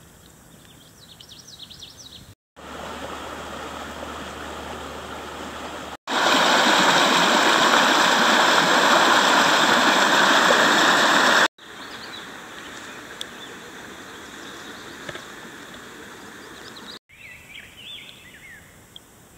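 Creek water running over riffles, loudest for several seconds in the middle, cutting in and out abruptly between shorter, quieter stretches; birds chirp at the start and again near the end.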